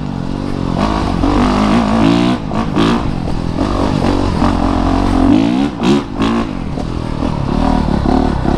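Honda CRF450RX's single-cylinder four-stroke engine being ridden hard, its pitch rising and falling every second or so as the throttle is opened and shut, with a few short knocks from the bike over the rough trail.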